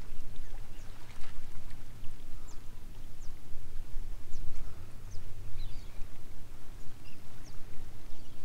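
Outdoor ambience on a small boat: a steady low rumble of wind and water, with scattered short, high bird chirps.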